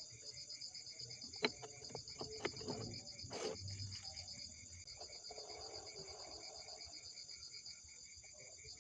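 Crickets chirping in a steady, rapid pulse throughout, with a few sharp taps and clicks between about one and three seconds in and a short harsh burst at about three and a half seconds.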